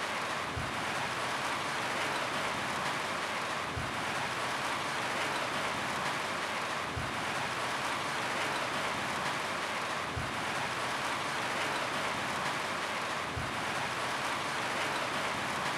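Steady rain falling on a roof, an even hiss with no let-up. A faint low thump recurs about every three seconds.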